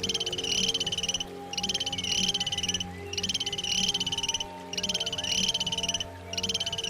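A fast, buzzy pulsed trill from a calling animal, about a second and a quarter long and repeated over and over with short pauses, about five times. Faint steady low tones run underneath.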